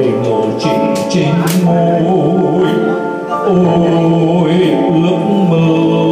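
A man singing a Vietnamese song into a microphone, with electronic keyboard accompaniment.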